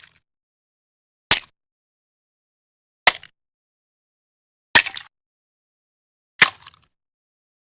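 Egg shells cracking, four separate short sharp cracks, each with a brief crackly tail, spaced well under two seconds apart with dead silence between.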